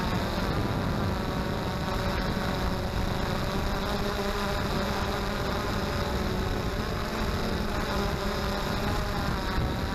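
XK Detect X380 quadcopter's motors and propellers buzzing steadily in flight, with wind rumbling on the microphone.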